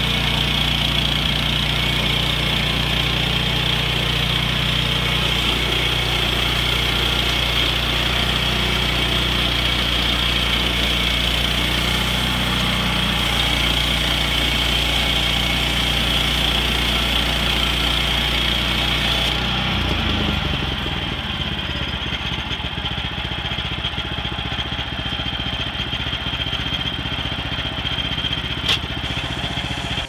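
The gas engine of a Woodland Mills HM126 portable bandsaw sawmill running steadily while its band blade cuts through a log. About two-thirds of the way through, the sound shifts and gets a little quieter, and a single sharp click comes near the end.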